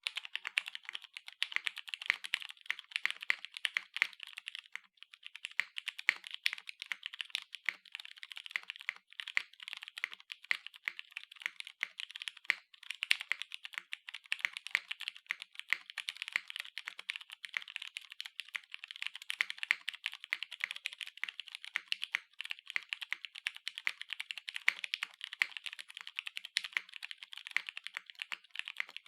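Fast, continuous typing on a TGR Jane V2 custom mechanical keyboard with lubed vintage Cherry MX Brown tactile switches in a polycarbonate half plate, no foam and no deskmat: a dense stream of higher-pitched key clacks and keystrokes.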